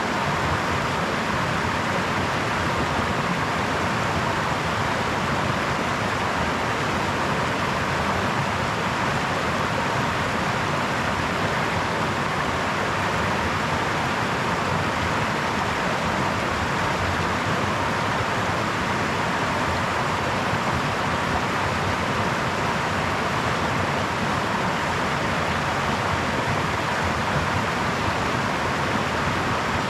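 Brook water running steadily: an even, unbroken rush of flowing water with no change in level.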